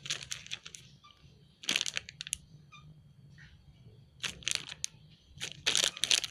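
Plastic packaging crinkling in three short bursts as squishy toys are handled and picked up.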